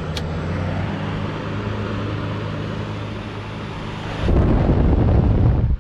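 Kool King window air conditioner's blower fan running with the case off, a steady whirring over a low hum. About four seconds in a louder low rumble comes in and cuts off suddenly near the end.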